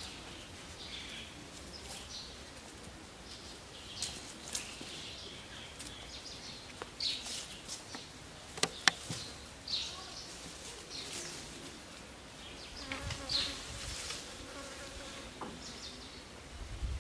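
Outdoor natural ambience of insects buzzing, with short high chirps recurring about once a second. Two sharp clicks come a little before the middle.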